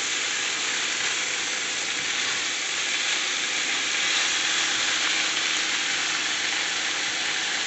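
Skinless chicken thighs and drumsticks sizzling steadily as they brown in a hot deep skillet.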